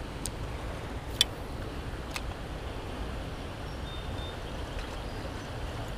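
Steady rush of fast, high spillway water swollen after heavy rain, with three light clicks in the first couple of seconds.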